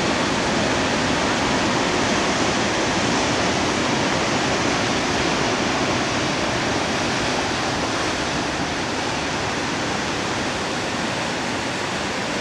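Steady, even rush of sea surf washing over a rocky shore.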